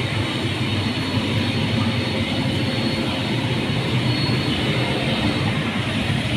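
Steady low mechanical rumble of an indoor soft-play area's blowers and machinery, with a faint high whine above it and no change through the stretch.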